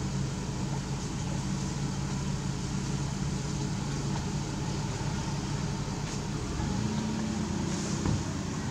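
A steady low drone under a constant hiss, like a motor running, with a brief faint click about eight seconds in.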